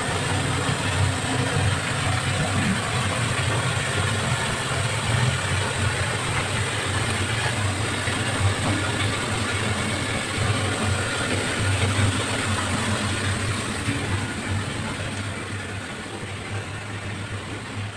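A steady mechanical hum with an even hiss over it, growing fainter over the last few seconds.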